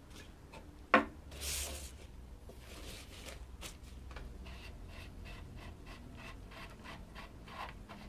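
Paper towel rustling and rubbing as hands wipe a metal part held in a bench vise, with a sharp click about a second in and light clicks of small metal parts being handled.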